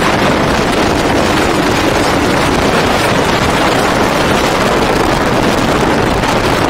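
Steady rush of wind and road noise from a car driving at highway speed, with no clear engine note standing out.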